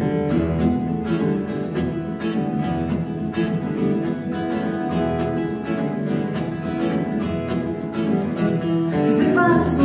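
Two acoustic guitars playing together, strummed chords in a steady rhythm, an instrumental passage of a song with no singing.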